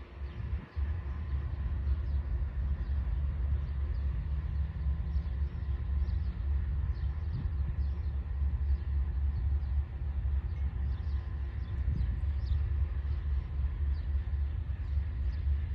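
GE C40-9W diesel locomotive with a 16-cylinder engine idling at a distance, a steady low rumble.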